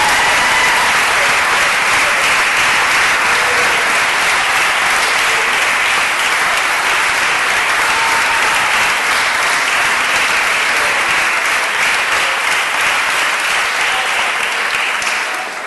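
Audience applauding steadily and at length, dying away near the end.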